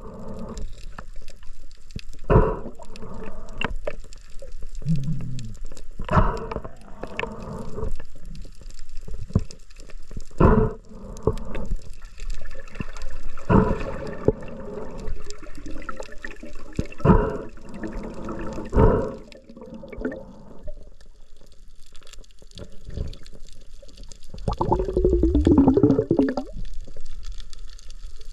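Water sounds with about a dozen sudden knocks at irregular intervals, and a louder stretch with a wavering tone near the end.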